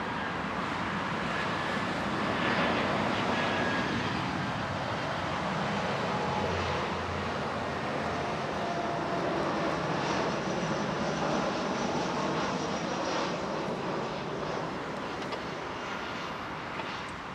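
Airbus A318's twin CFM56 turbofan engines passing on final approach with the landing gear down. A steady rushing jet noise with a faint whine, loudest a few seconds in and easing slightly near the end.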